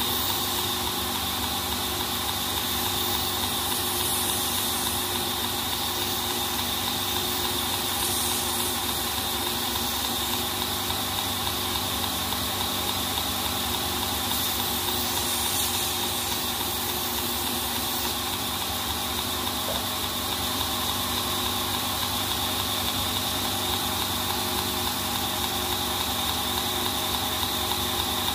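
Belt grinder running steadily on its small-wheel attachment while a Mokuti (layered titanium) pocket clip is ground against the belt, a constant motor hum with a steady high whine.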